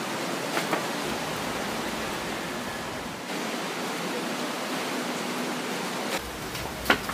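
Steady hiss of outdoor background noise with a low rumble that comes and goes. There are a few light clicks and a single sharp tap near the end.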